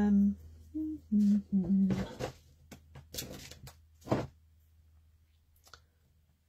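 A woman's short hums and murmurs, followed by a couple of seconds of rustling and light clicks as craft supplies are handled, then quiet.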